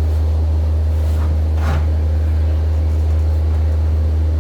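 Steady low engine hum running at an even level, with a single knock about one and a half seconds in.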